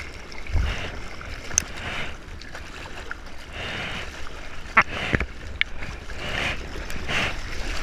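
Seawater lapping and sloshing around a surfboard and an action camera held at the waterline, with a few sharp splashes, the loudest a little before five seconds in.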